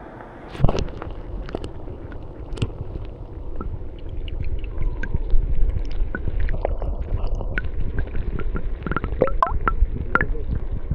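River water heard through a camera microphone held underwater: a sudden splash-like onset about half a second in as it goes under, then muffled gurgling and rumbling of the current, dotted with many short clicks and a few brief warbling sounds near the end.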